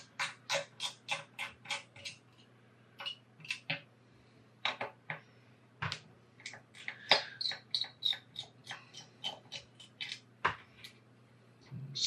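Screwdriver clicking in quick runs, several clicks a second, as small screws are turned out of a graphics card's metal backplate, with a short pause a couple of seconds in.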